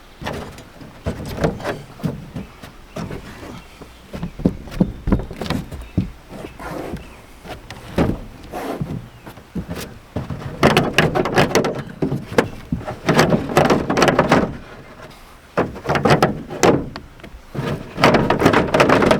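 Plastic shroud of an RV rooftop air conditioner being tugged and wiggled, with irregular knocking, rattling and creaking that comes in denser bursts in the second half. It won't come free because one screw on the other side is still in.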